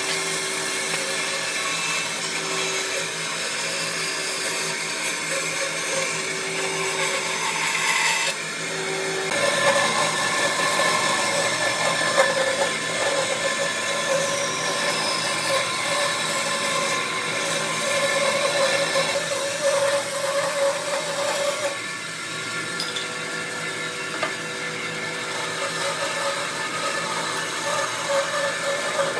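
An electric power tool running steadily, working wood, with a constant motor whine. Its pitch and load shift about a third of the way through and again later on.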